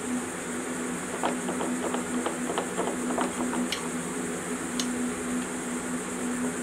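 Ratcheting box-end wrench clicking in quick runs as it turns a bolt on a flywheel puller fitted to a classic Mini flywheel, over a steady low hum.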